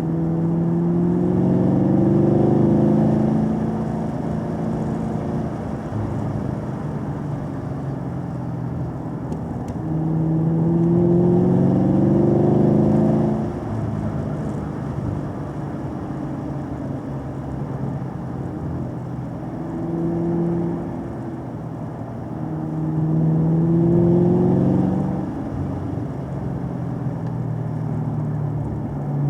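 Car engine heard from on board along a winding road. Its pitch and loudness rise four times as it accelerates, and it settles back to a lower, steady note between pulls.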